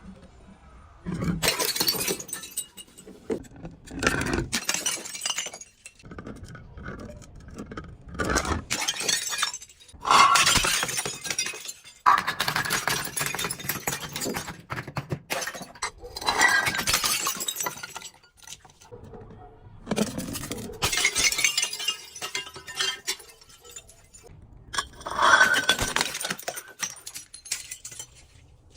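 Glass bottles being crushed and broken: a series of crunching, shattering bursts of glass, each a second to a few seconds long, with short pauses between them.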